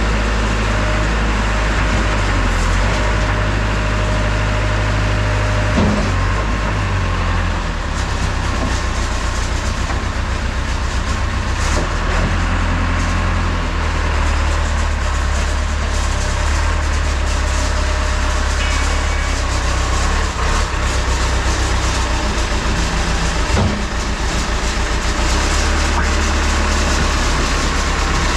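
JCB backhoe loader's diesel engine running on a test run after service of its control valve and hydraulic cylinder for lost hydraulic power. The engine note shifts several times, with a couple of sharp knocks.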